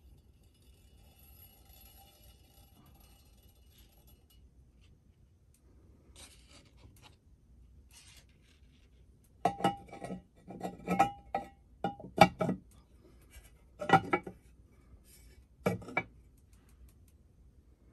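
Cast-iron lid of a Red Goose Shoes string dispenser knocking and scraping against the cast-iron body as it is set in place: a run of metal-on-metal clanks, each with a short ring, starting about halfway through.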